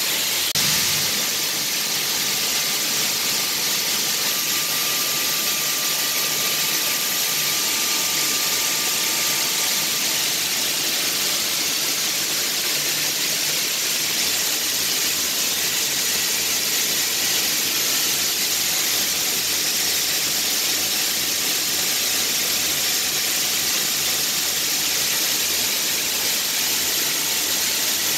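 Steady rushing hiss of hatchery tank-room machinery and water, with a few faint steady whining tones and no change in level.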